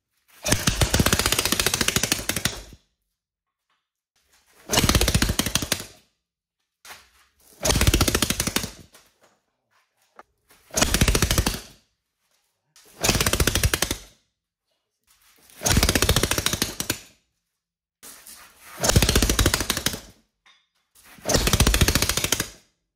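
Home-built 3D-printed 180cc single-cylinder engine firing and running in short spurts of one to two seconds, about eight times, cutting out between each. It will not keep running or idle, which the builder puts down to an air leak at the intake leaving it short of fuel.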